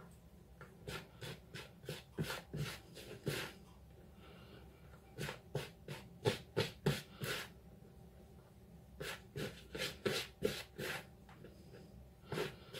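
Fingertips rubbing margarine into self-raising flour in a plastic mixing bowl, short rubbing strokes several a second in runs with brief pauses, working the fat to a fine crumb for scone dough.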